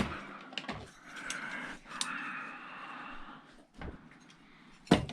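Objects being handled on a workbench: a sharp knock at the start, a couple of seconds of scraping and rustling, then two loud knocks near the end.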